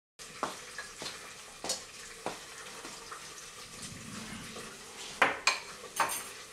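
Bowls and dishes clinking as they are set down on a table, with several sharp clinks and the loudest cluster about five seconds in, over a steady hiss of kitchen background.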